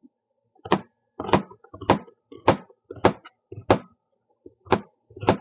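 Kitchen knife slicing a raw, seeded bitter melon into rounds on a cutting board: eight sharp cuts at about two a second, with a short pause before the last two. The crisp slicing sound shows the firm, fresh texture of raw bitter melon.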